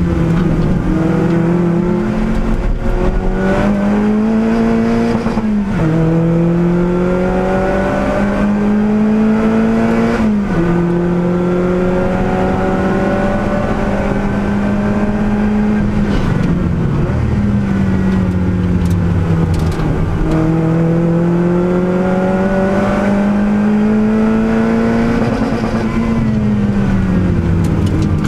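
Lotus Elise Cup R S3's engine heard from inside the cockpit at racing speed. Revs climb in gear with sharp upshifts about 5 and 10 seconds in, hold steady for a while, then fall away as the car lifts and shifts down for corners, once about two-thirds through and again near the end.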